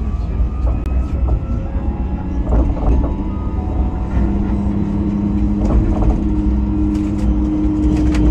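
Sydney light rail tram (Alstom Citadis) running along the street, heard from inside the car: a steady low rumble that grows slightly louder, with a humming tone from the drive coming in about halfway.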